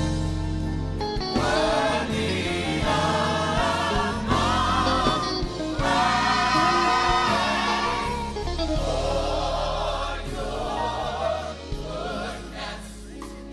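Gospel choir singing a praise song in harmony, voices wavering with vibrato over a steady bass and instrumental backing.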